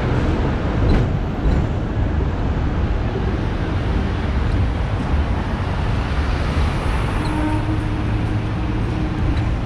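Hong Kong double-decker electric tram running along its rails: a steady low rumble of wheels and motor, with road traffic around it. A low hum comes in about seven seconds in and fades before the end.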